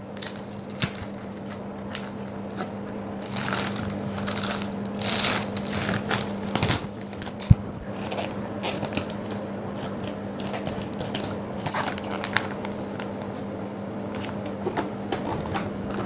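Plastic vacuum-sealer bag crinkling and rustling in irregular bursts as a fish is slid into it and the bag is handled and trimmed, with a sharp click about halfway through. A low steady hum runs underneath.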